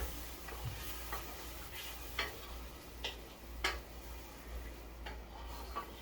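Spoon stirring curry in a pot, clinking and scraping against the pot at uneven intervals, over a low steady hum.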